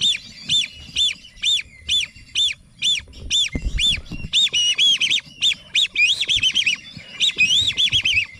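Whistling ducks calling: clear whistled notes, each rising and then falling, about two a second, joined from about halfway by many overlapping whistles from several birds.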